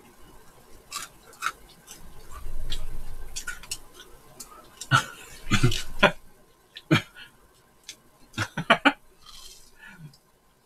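Close-miked eating sounds: crunching and chewing of crispy fried chicken, with scattered sharp clicks and a few short louder crunches in the second half.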